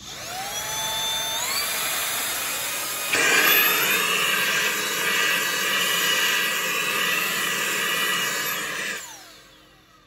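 Autobot VX handheld cordless vacuum cleaner switched on: its motor spins up with a rising whine and runs with a steady hiss. About three seconds in it steps up louder and higher. It is switched off about nine seconds in, and the whine falls away as it spins down.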